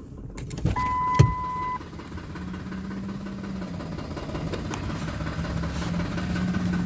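Ford 5.4 L V8 of a 2007 F-150 idling roughly after deceleration, with a low hum that wavers slightly in pitch. About a second in there is a sharp click and a one-second electronic beep.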